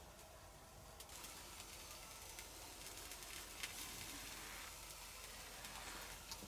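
Vegetables, mushrooms and meat sizzling faintly on a wire grill over wood embers, with a few sharp clicks.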